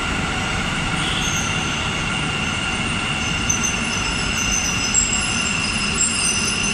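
Namma Metro Green Line train running alongside the platform. A steady low rumble is joined by several steady high-pitched whines, with thinner, higher squeals coming in after a second or two.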